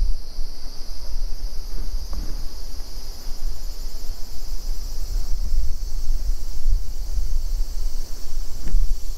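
Wind buffeting the microphone with an uneven low rumble, over a steady high chirring of insects.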